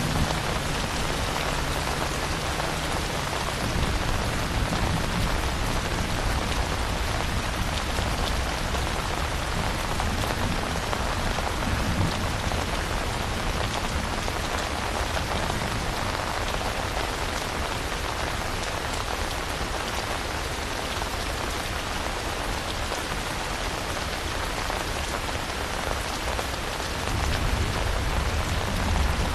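Steady, dense rain. A low rumble of distant thunder swells near the end.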